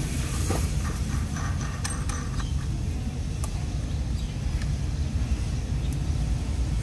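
Steady low rumble, with a few faint sharp clicks of nuts, bolts and a steel spanner being handled on a PVC flanged pipe fitting.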